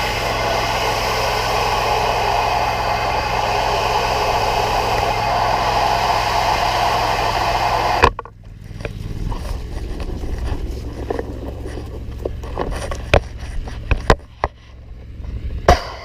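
Pressure washer running and spraying house wash mix onto siding, a steady hiss over a low engine hum. About eight seconds in the spray cuts off suddenly, leaving a lower engine rumble with a few sharp clicks and knocks.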